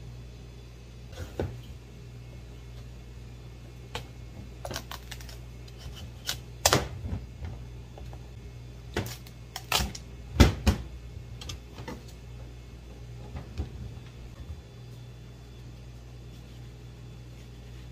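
Kitchen knife cutting a raw pumpkin into pieces: irregular knocks and clicks of the blade and chunks against the cutting board. The loudest knocks come about seven and ten seconds in.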